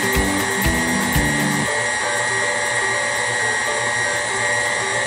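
KitchenAid Ultra Power stand mixer running steadily with a constant motor whine, its beater turning through thick pound-cake batter of butter, sugar and eggs.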